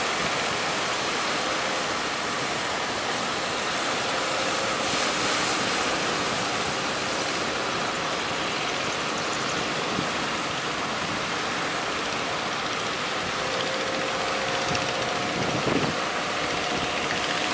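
Steady rushing noise of surf and strong wind, with the faint hum of a fishing boat's engine coming and going.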